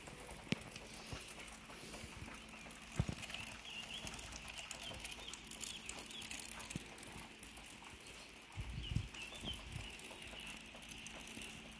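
Scattered footsteps and small knocks on a bare concrete floor, with faint bird chirps outside, mostly a few seconds in and again near the end.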